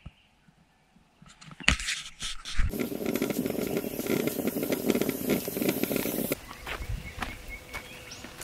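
Aluminium stovetop moka pot hissing and sputtering loudly as it steams, after a few knocks near the start, cutting off suddenly about six seconds in. Footsteps and light ticks follow.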